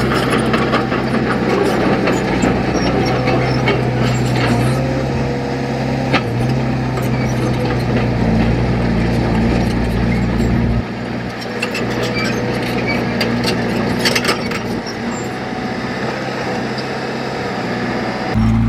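Heavy diesel engine of an earthmoving machine running steadily, with scattered clanks and scraping. The deep engine note drops about eleven seconds in and comes back strongly near the end.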